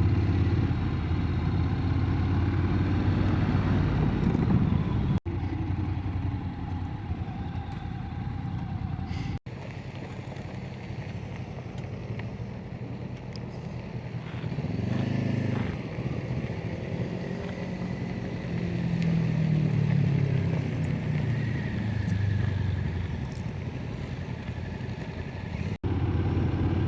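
Motorcycle engine and road noise over several clips cut together: a steady engine at first, then quieter stretches in which an engine sound swells and fades twice.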